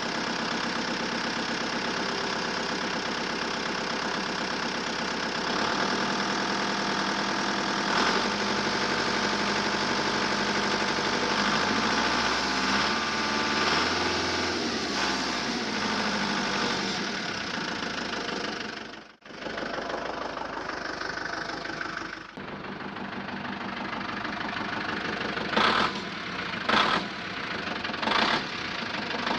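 Truck engine sound running with a knocking idle, its pitch rising and falling around the middle. It cuts out briefly twice about two-thirds of the way through, and three sharp knocks come near the end.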